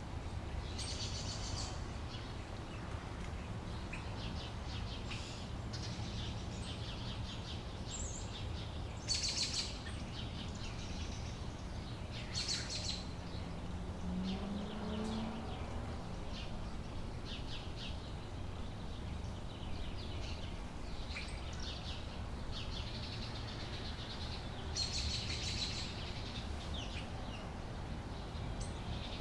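Outdoor summer-day ambience: birds chirping and calling on and off, in short clusters about a second in, around nine and twelve seconds, and near the end, over a steady low background rumble.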